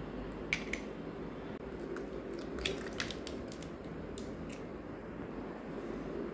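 Hen's eggs being cracked by hand into a plastic bowl: several short, sharp clicks of shell cracking and being pulled apart, with faint wet squishes as the contents drop in.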